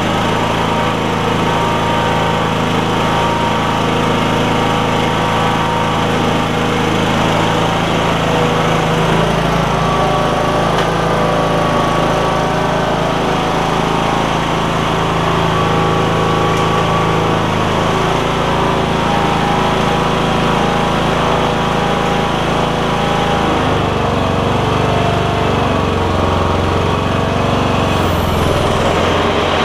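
Kohler Courage engine of a 2010 Troy-Bilt Bronco lawn tractor running steadily, with the mower deck turning. Its note shifts about two-thirds of the way through and drops lower a few seconds later. The deck is a little loud, which the owner puts down to its spindle bearings.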